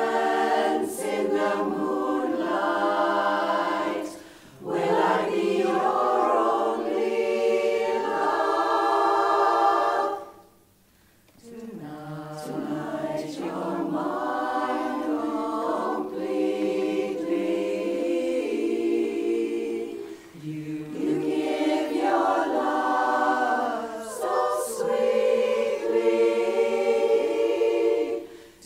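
Women's chorus singing a cappella in close harmony, phrases broken by short pauses, with one clear breath-length silence about ten seconds in.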